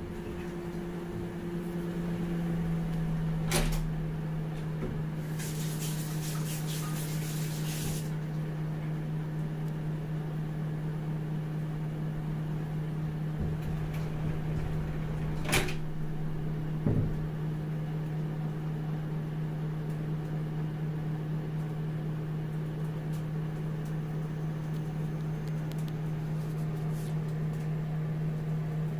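National (Panasonic) microwave oven running with a steady low hum, broken by a few sharp clicks and a short hiss.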